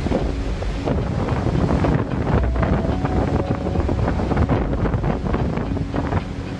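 Strong wind buffeting the microphone over heavy, breaking seas in a storm, with a low rumble, and faint background music underneath.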